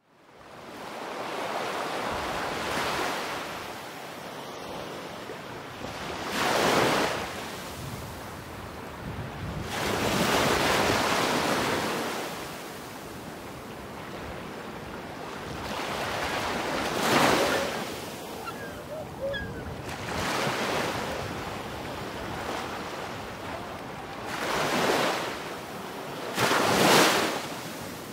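Ocean waves washing in and drawing back, a rushing that swells and fades every few seconds.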